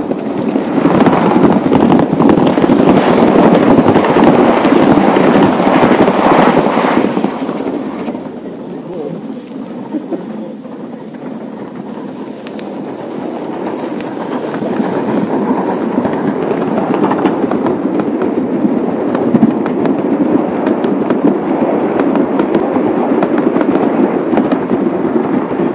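Gauge 1 model train running on the layout's track: a steady rumble of wheels with rapid small clicks over the rails. It is loud at first, eases off after several seconds, then builds again as a train comes close.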